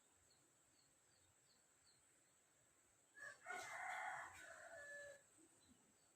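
A rooster crows once in the background, starting about three seconds in and lasting about two seconds, with a falling end. Otherwise the sound is near silent.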